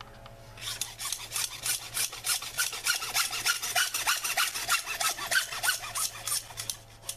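Hacksaw cutting through white PVC drain pipe in quick, even back-and-forth strokes. The strokes start about half a second in and stop shortly before the end.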